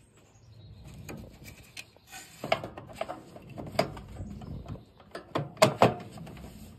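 Plastic parts at the front of a General Electric dryer knocking, clicking and rubbing as they are pressed by hand, while a replacement part refuses to seat properly. A few sharp knocks, the two loudest close together near the end.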